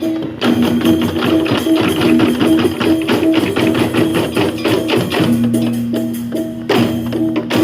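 Balinese tektekan percussion ensemble playing: many bamboo tektek struck in fast interlocking rhythm over a few held pitched tones. The playing drops out briefly just after the start and again near the end.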